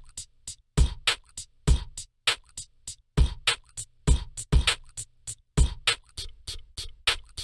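A beat built from beatboxed mouth-sound samples from the Mouthin' Off plugin: quick, crisp beatbox hi-hats ticking over low kick thumps that land every second or so, with a faint low sustained note beneath.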